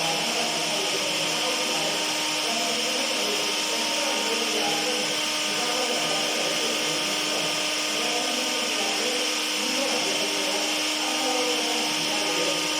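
Electric kitchen blender running steadily at one speed: a constant motor whir with a steady hum.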